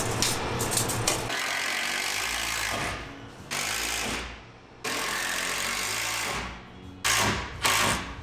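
Cordless drill driving screws into 2x4 wood framing, running in about five bursts that start and stop abruptly: one long run of nearly two seconds, then shorter ones, the last two brief.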